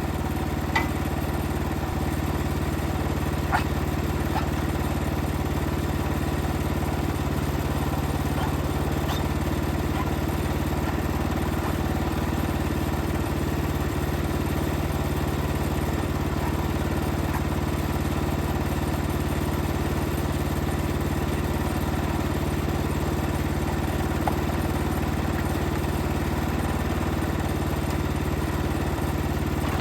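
Wood-Mizer LX55 portable sawmill's 14 hp engine running at a steady speed, with a few light clicks.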